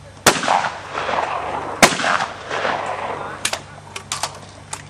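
Two shotgun shots about a second and a half apart, each followed by a fading echo, then a few smaller sharp clicks.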